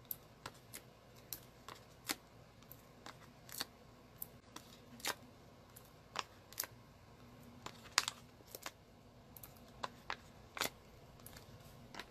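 Irregular small clicks and ticks, about two dozen, from fingers peeling foam adhesive dimensionals off their backing sheet and pressing them onto card stock.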